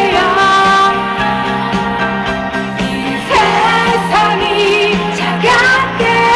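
Live pop-rock band music, with a woman's voice carrying the melody over the band.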